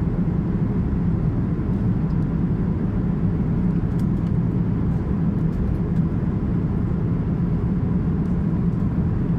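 Cabin noise of an Airbus A350-1000 in flight: a steady low drone of engines and airflow.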